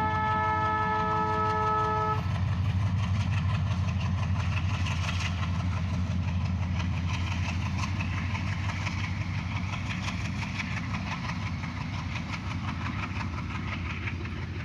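Diesel locomotive horn sounding a multi-note chord that cuts off about two seconds in, then the ALCo diesel locomotive's engine running steadily, easing slightly toward the end.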